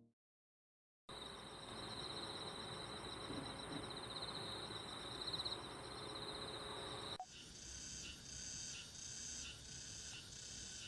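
Faint outdoor insect ambience: after a second of silence, a high steady trill over a soft hiss, then after a cut a high chirp repeating about twice a second.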